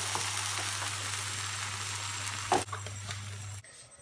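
Spiced chicken cubes sizzling in hot oil in a pan, with a steady low hum underneath. A sharp knock comes about two and a half seconds in, after which the sizzle is quieter, and the sound cuts off abruptly near the end.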